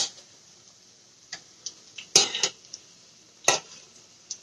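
Metal slotted turner clinking against the side of a steel pot while turning salmon patties in hot oil: a handful of sharp clinks, the loudest a quick double about two seconds in and another about three and a half seconds in, over the faint sizzle of the frying oil.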